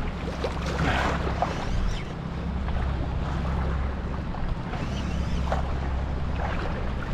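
Wind buffeting the microphone over a low steady rumble, with water sloshing and splashing in the shallows.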